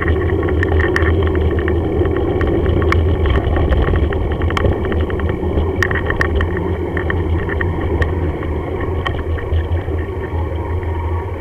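Steady low rumble of a bicycle rolling along a rough tarmac lane, carried through a camera mounted on the bike, with scattered sharp rattles and clicks from the bike and mount over the bumps.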